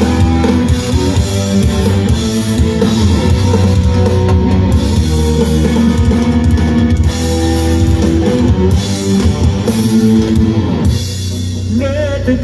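Live rock band playing an instrumental passage: electric guitars over a drum kit. It quietens a little before the end.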